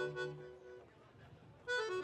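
Accordion playing the instrumental opening of a baião tune. A sustained chord dies away about a second in, there is a short pause, and a quick run of notes starts near the end.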